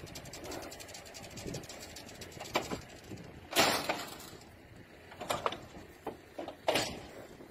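A heavy bull stepping out of a metal livestock trailer: about five sharp knocks and clatters of hooves and body against the trailer floor and gate, the loudest about three and a half seconds in.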